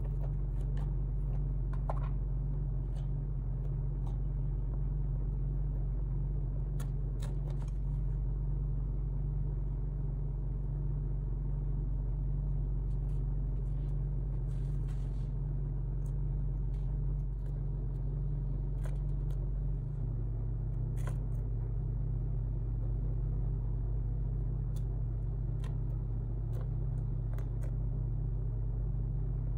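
A steady low rumble and hum, with a few faint, scattered scrapes and ticks of a metal palette knife spreading texture paste on a canvas.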